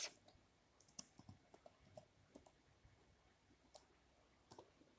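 Near silence broken by about ten faint, irregular computer keyboard key clicks, as of someone typing a short phrase.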